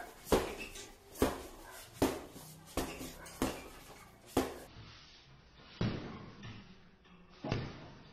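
Gloved punches landing on a hanging heavy bag: eight sharp thuds, a steady run of six about one every 0.8 seconds, then two more spaced further apart.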